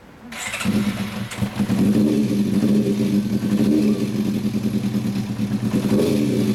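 Kawasaki Zephyr 400 Kai's air-cooled inline-four engine started up about half a second in, catching at once and then running at a steady idle.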